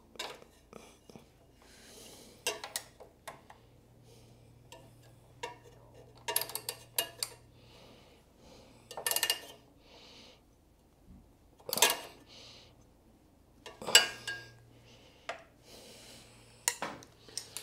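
Metal hand tools clinking against the footpeg mount in a series of separate sharp clicks a second or more apart, as the lowered footpeg's bolt and lock nut are tightened.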